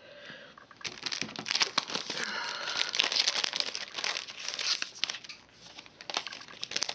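Clear cellophane retail packet crinkling as it is opened, with die-cut paper pieces rustling as they slide out. The crackling starts about a second in, is busiest in the middle and thins out near the end.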